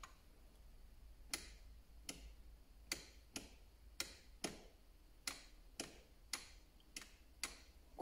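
Wall light rocker switch flicked on and off repeatedly: about eleven faint, sharp clicks roughly every half second, testing a newly installed smart switch module wired behind it.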